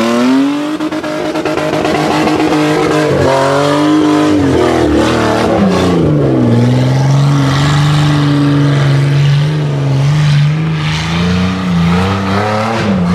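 Off-road rock buggy's engine revving hard under load on a steep hill climb, wheels spinning. Its pitch rises and falls several times, drops about six seconds in, then holds fairly steady to the end.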